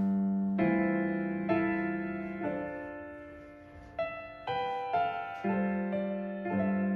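Background piano music: slow single notes and chords, each struck and left to fade.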